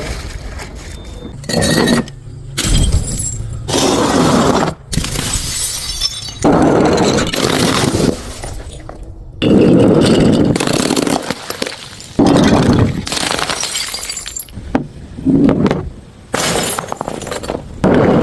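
Glass bottles smashing one after another: about a dozen separate breaks, each a sudden crash followed by shards tinkling, with abrupt cuts between them.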